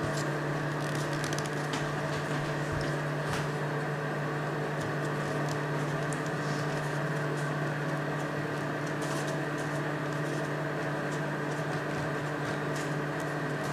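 A steady hum, with faint crinkling and clicking of folded-paper 3D origami pieces as hands press and adjust them.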